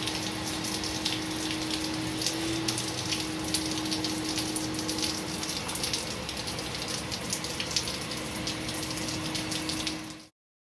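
Rain spattering and dripping on wet ground and flooded pavement: a steady wash dotted with many small drip ticks, over a faint steady low hum. It cuts off suddenly near the end.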